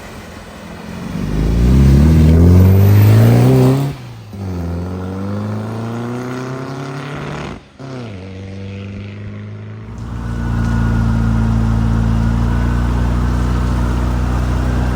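Car engines accelerating: the pitch climbs hard over the first few seconds and then breaks off. A second engine pulls with a slowly rising pitch, and there is another abrupt change. From about two-thirds of the way through, a steady engine note runs under a loud even rushing noise.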